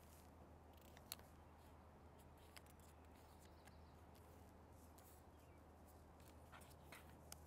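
Near silence: faint rustles and small clicks of origami paper being folded and creased by hand on a cutting mat, the sharpest click about a second in and a few more near the end, over a low steady hum.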